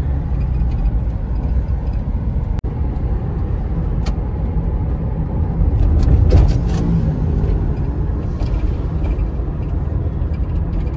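Road and engine noise inside a moving vehicle's cabin: a steady low rumble, cut off for an instant about two and a half seconds in and swelling louder around six seconds in.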